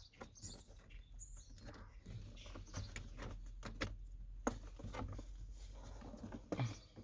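Irregular plastic clicks, knocks and rattles from handling a car door card and tugging at its wiring plug, with a bird chirping briefly near the start.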